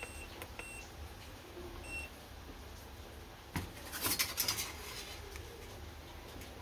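FNIRSI DWS-200 soldering station beeping at each button press, three short high beeps in the first two seconds as the set temperature is raised. About three and a half seconds in, a click, then about a second of crackling sizzle as the hot tip meets the solder and flux on the copper strip.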